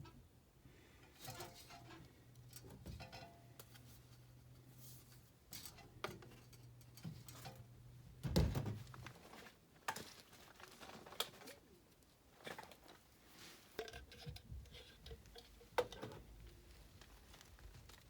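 Quiet handling sounds of work on a furnace vent pipe and its fittings: scattered clicks, taps and rustles, with one louder knock about halfway through. A low steady hum underneath cuts off just after that knock.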